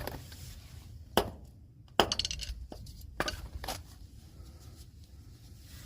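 Sharp metallic clinks and taps, four or five strokes, the loudest about two seconds in with a brief rattle after it, as a small steel C-clip from a drum brake assembly is worked back flat.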